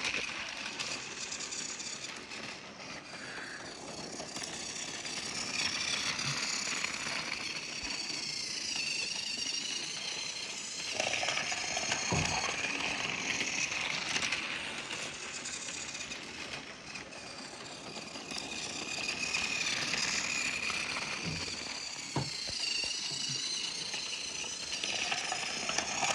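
Battery-powered Trackmaster toy train running on plastic track: the steady whirring rattle of its small motor and gears, growing louder and fainter as it travels round the layout, with a few sharp clicks.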